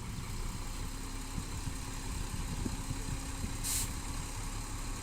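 Diesel engine of a working bulldozer or dump truck running steadily, with one short hiss about three-quarters of the way through.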